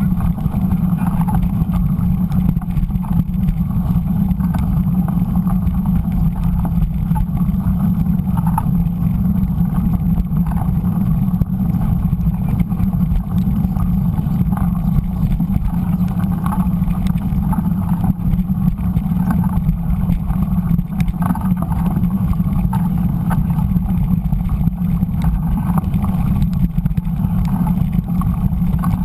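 Steady low rumble of mountain bike riding noise on a dirt road, heard through a bike-mounted GoPro: tyres rolling over the dirt mixed with wind buffeting the camera.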